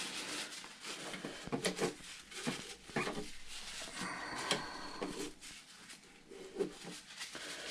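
Paper towel rustling and rubbing as excess grease is wiped off, with scattered light clicks and taps of small parts being handled.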